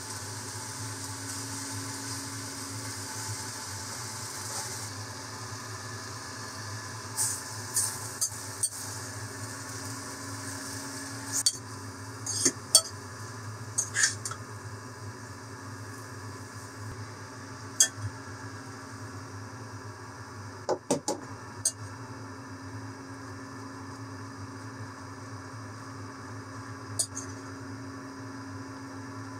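Chopsticks and a metal turner clicking, knocking and scraping against a stainless steel saucepan while stir-frying noodles and vegetables, in scattered sharp knocks over a steady low hum.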